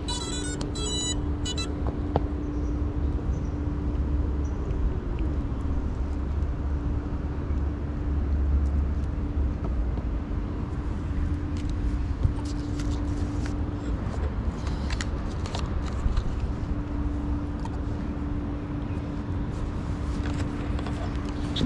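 Steady low rumble of street traffic with a steady hum running under it. In the first second and a half a quick run of stepped electronic beeps sounds from the FPV drone as its battery is plugged in, and later come scattered sharp clicks of the radio controller being handled.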